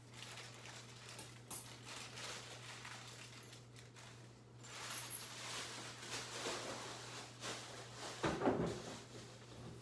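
Handling noises from light-fixture parts being worked on: scattered small knocks and rattles, with a louder thump about eight and a half seconds in, over a steady low hum.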